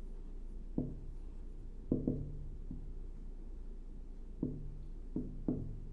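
A marker writing on a whiteboard: about seven short, irregular taps and knocks as the strokes and dots go down, a few with a brief low ring from the board, over a steady low hum.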